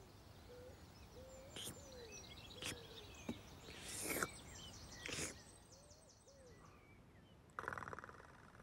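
Faint cartoon birdsong ambience, small birds chirping, with a few soft short sound effects in between.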